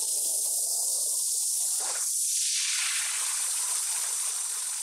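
CNC plasma cutting torch cutting steel sheet with a steady hiss. About two seconds in the arc goes out at the end of the cut, and the plasma torch's air flow keeps hissing.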